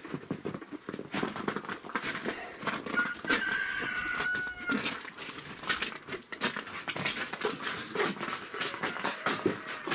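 Footsteps crunching in wet, heavy packed snow, in quick irregular steps. A short high whine sounds for about a second and a half, about three seconds in.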